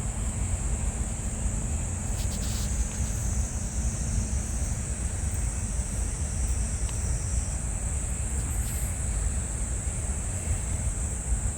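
Wind buffeting the microphone as a steady low rumble, with a continuous high-pitched drone of insects behind it and a few faint rustles about two to three seconds in.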